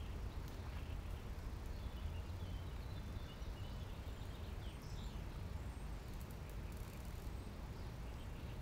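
Quiet morning outdoor ambience: a steady low background rumble, with faint short bird chirps scattered through it.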